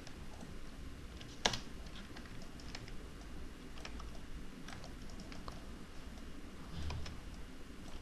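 Scattered clicks of a computer keyboard and mouse, a few at a time with pauses between, one sharper click about one and a half seconds in, over a faint low hum.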